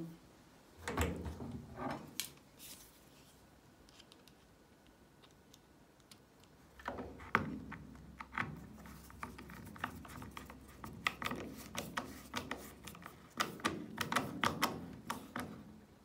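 Screwdriver driving a screw into the washing machine's plastic water-valve mounting. A few clicks about a second in, then a quiet stretch, then from about seven seconds in a rapid, irregular run of sharp clicks and ticks.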